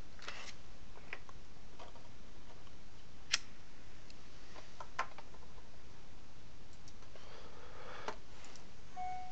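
A few separate computer mouse clicks over a steady background hiss, the sharpest about three and five seconds in, with a brief steady tone near the end.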